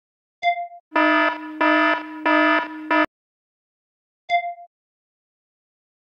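Sound effects: a short chime ding, then a harsh buzzer tone pulsing three times over about two seconds and cutting off abruptly, then another chime ding.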